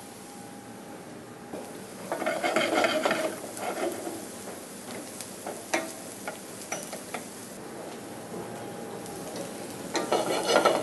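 Wooden spoon stirring sliced shallots, garlic and thyme as they sweat in a stainless steel saucepan, scraping the pan with a soft sizzle underneath. There are two spells of stirring, about two seconds in and again near the end, with scattered light knocks between them.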